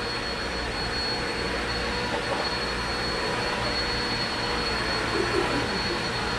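Steady whooshing machine noise with a faint, constant high whine.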